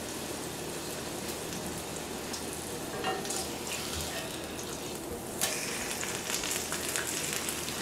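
Steak sizzling in a hot cast-iron skillet, a steady crackling spatter, with a few clicks of a spatula against the pan a few seconds in. About five and a half seconds in the sizzle suddenly grows louder and brighter as the steak is turned over onto the hot pan.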